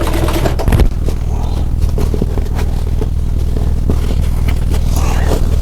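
Sewing machine running and stitching a seam down the side of an upholstery panel: a steady motor hum with scattered clicks from the needle mechanism.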